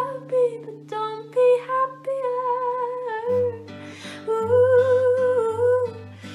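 A young woman singing a slow, sustained melody while accompanying herself on an acoustic guitar, which moves to a lower chord about halfway through.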